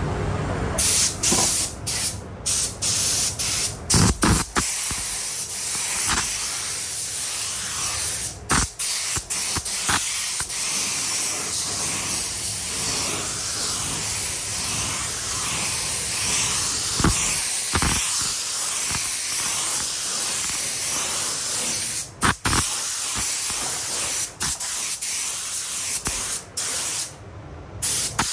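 Compressed-air spray paint gun hissing as paint is sprayed onto the car body. It starts about a second in and runs in long passes broken by several brief gaps.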